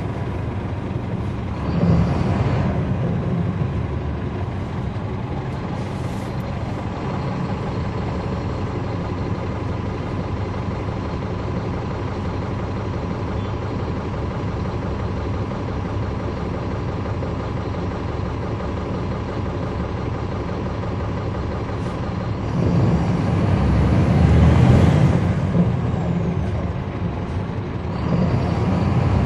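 Caterpillar C13 diesel engine of a NABI transit bus heard from inside the cabin, running with a steady drone, the radiator fan also on. It grows louder for a few seconds about three quarters of the way through, and again near the end.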